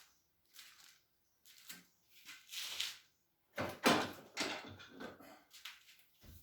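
Tools and parts being handled on a workbench: scattered clicks, knocks and rustling, busiest about three and a half to five seconds in.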